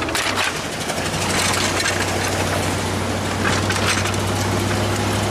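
A vehicle engine running steadily under rough, crackling road and wind noise.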